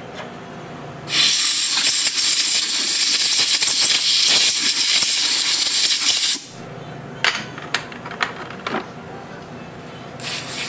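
Compressed-air blow gun hissing in one steady blast of about five seconds, blowing out a motorcycle carburetor float bowl. A few light clicks of the metal part being handled follow, then a short hiss of carburetor-cleaner spray near the end.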